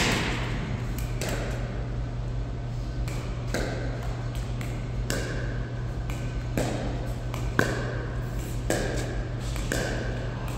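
Pickleball paddles striking the plastic ball back and forth in a warm-up rally: a string of sharp pops at an uneven pace, about one every half second to second, many with a short ringing ping. A steady low hum runs underneath.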